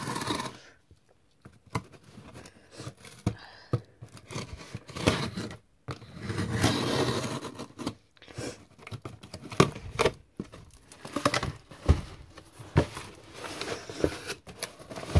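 Cardboard shipping box being opened: packing tape slit with a knife and torn off the cardboard, with a longer tearing rip about six to eight seconds in. The box's flaps are handled with scattered scrapes, crinkles and sharp knocks.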